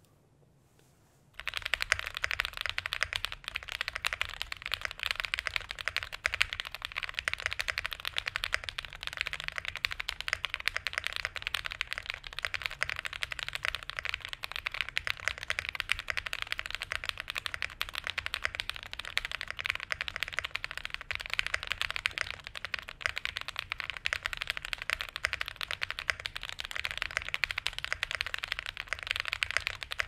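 Rapid, continuous typing on a Class65 plateless, gasket-tab-mounted custom mechanical keyboard with lubed Durock POM linear switches and Cherry-profile ABS keycaps, starting about a second and a half in.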